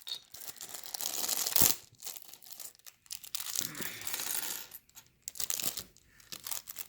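Thin plastic poly bag of Lego parts crinkling and tearing as it is opened, with small plastic pieces clicking and clattering, one sharp click about one and a half seconds in.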